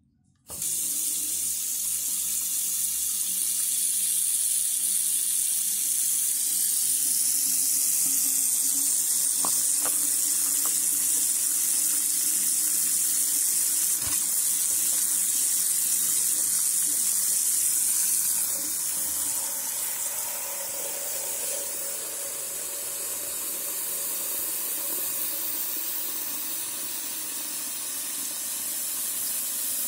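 Water running from a bathroom mixer tap into the sink, a steady hiss that starts suddenly about half a second in as the lever is lifted. It drops a little in level a bit past halfway.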